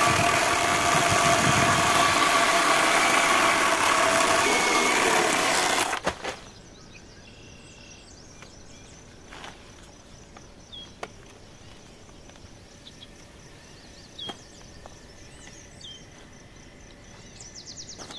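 Electric chainsaw running at full speed, cutting through a log, with a steady whine over the cutting noise. It stops abruptly about six seconds in, without idling.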